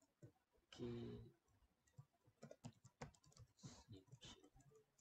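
Faint computer keyboard typing and mouse clicks, irregular and scattered, as a component is renamed in CAD software. A short pitched sound about a second in is the loudest thing.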